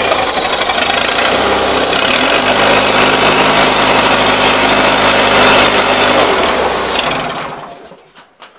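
Garden tractor's twin-cylinder engine running ragged just after a start, settling into a steadier note about two seconds in, then dying out about seven seconds in. The owner thinks it may be out of gas; it runs mainly on one cylinder, the other being low on compression.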